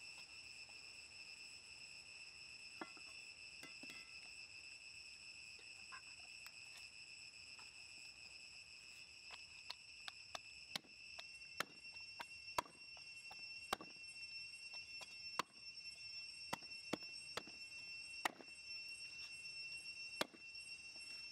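Cleaver chopping through goat ribs on a chopping block. The sharp, irregular strikes come about once a second through the second half, over a steady high insect drone.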